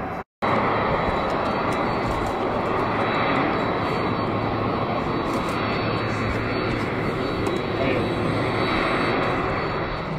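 Boeing 777-300ER's GE90 turbofan engines running as the airliner taxis: a loud, even jet rush with a faint high whine. It cuts in abruptly after a split-second gap at the very start.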